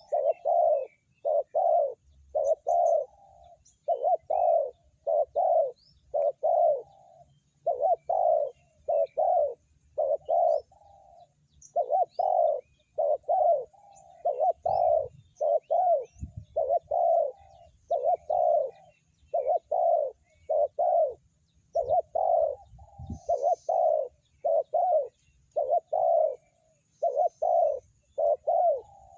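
Spotted dove cooing over and over, short groups of two or three deep notes separated by brief pauses. Faint chirps of small birds sound in the background.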